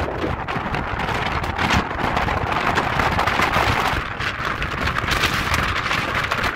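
Steady rushing noise of a ferry under way: wind buffeting the microphone over a hiss of moving water and the boat's running noise.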